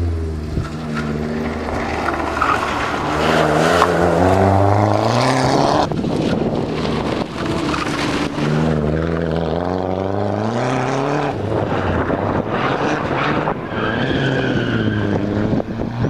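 Lancia Delta Integrale rally car's turbocharged four-cylinder engine accelerating hard, its note climbing in pitch. It breaks off sharply about six seconds in, climbs again as the car passes close by, and drops away after about eleven seconds.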